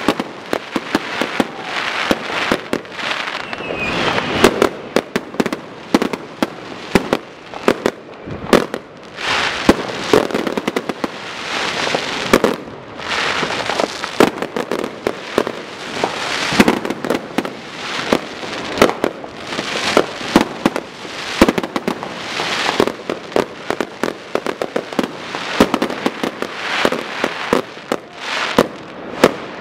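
Fireworks going off all around: a continuous mix of firecracker bangs, sharp reports and crackling with no pause, the bangs coming several times a second.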